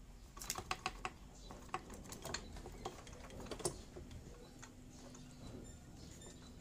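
A quick run of sharp metallic clicks and taps as the cylinder block of a Yamaha Jupiter MX engine is worked loose by hand and slid up its studs, then quieter.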